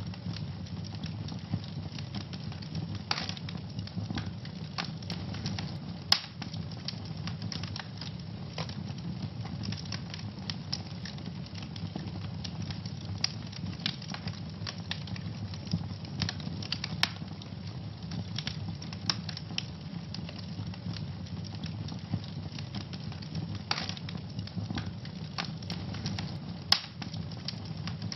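Wood fire burning in a fireplace: a steady low rumble of flames with constant irregular crackling and snapping, a few louder pops standing out.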